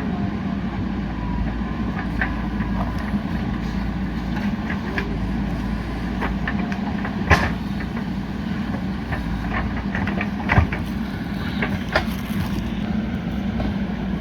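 JCB 3DX backhoe loader's diesel engine running steadily as it works, with a few sharp knocks, the loudest about seven and ten and a half seconds in.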